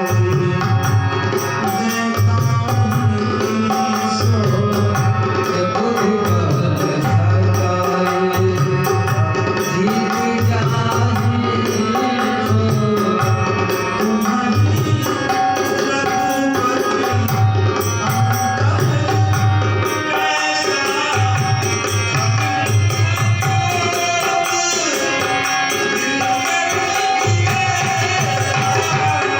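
Dholak playing a steady rhythmic pattern, its deep bass strokes repeating under crisper treble 'tanak' strokes, over a backing of sustained held notes.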